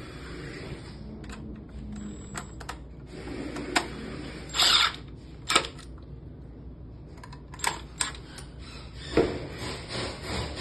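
Small parts of a smart lock being handled and fitted together while its back is secured: a series of scattered sharp clicks and knocks, with a louder short scrape about four and a half seconds in.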